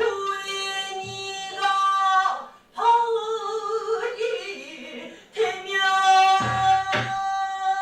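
Pansori singing: long, drawn-out sung notes sliding between pitches, with a few low strokes of the buk barrel drum about a second in and near the end.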